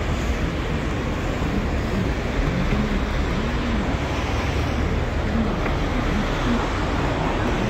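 Steady city street noise of traffic going by, with indistinct voices talking in the background.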